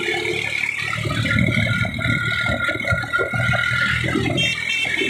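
Tractor diesel engine running as the tractor drives along a road, with a loose rattle and an uneven low rumble of wind on the microphone.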